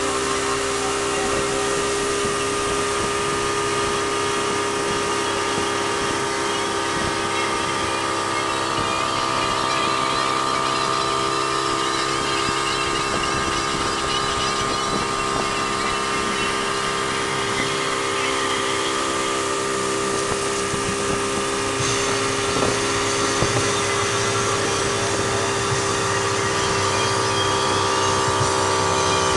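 Mercury outboard motor running steadily at towing speed, with a constant rush of wind and water.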